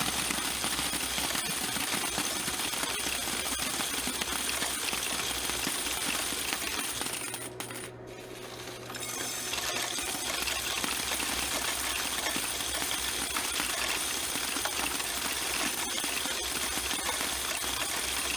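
Coin-counting kiosk clattering steadily as it takes in and counts a load of quarters, with its motor humming underneath. The clatter drops away for a moment about eight seconds in, then picks up again.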